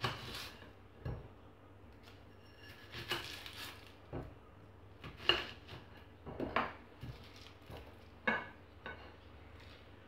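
A kitchen knife knocking and scraping against a china plate as an onion is cut up by hand, in a series of irregular clinks and taps.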